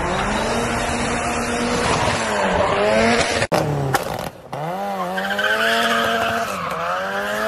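Turbocharged Tofaş Doğan's engine revving, its pitch rising and falling repeatedly, with a sudden cut in the sound about three and a half seconds in.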